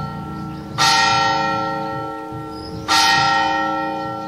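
A large bell tolling slowly: struck twice, about two seconds apart, each stroke ringing out with many overtones and fading, over a steady low hum.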